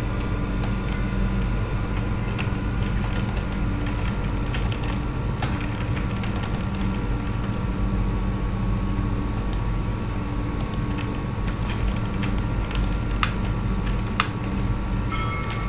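Steady hum with scattered faint ticks and two sharper clicks near the end, typical of computer keyboard keys during digital drawing.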